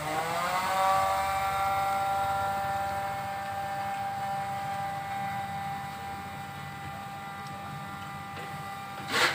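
An off-screen motor or engine whine rises in pitch over the first second, then holds steady. A sharp knock comes near the end.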